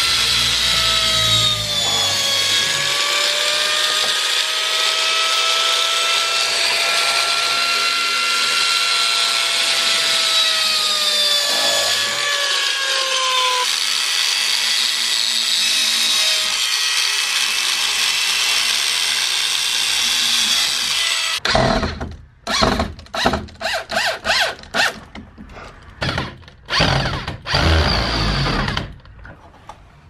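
An electric drill runs continuously while boring into a wooden wall stud, its motor whine dipping and rising in pitch under the load. It cuts off suddenly about 21 seconds in, and a run of irregular knocks and thuds follows.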